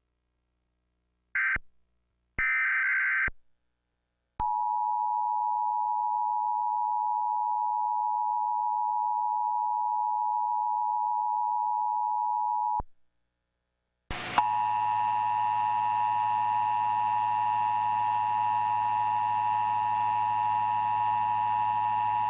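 Emergency Alert System test tones: two short screeching data bursts, then the steady two-tone EAS attention signal for about eight seconds. After a short gap the attention signal plays again, rougher and with a low hum under it.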